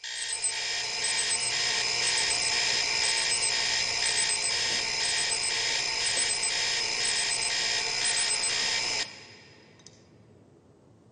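An electronic alarm clock going off: a loud, steady ringing tone with a pattern that repeats about once a second, cut off suddenly after about nine seconds.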